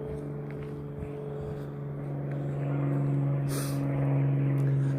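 Steady engine hum at an even pitch, growing gradually louder as it approaches.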